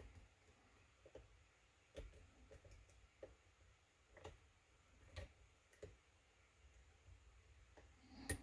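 Faint, irregular clicks and taps of a lock pick and tension wrench working the pins of a pin-tumbler kik cylinder, about eight in all, the loudest near the end.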